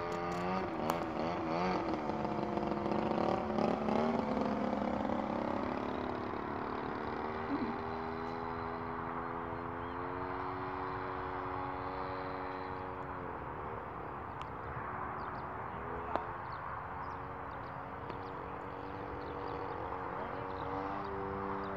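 Engine of a radio-controlled model biplane flying aerobatics, its note rising and falling in pitch as the plane manoeuvres. The engine note fades briefly about two-thirds of the way through, then returns, and there is a single short click shortly after.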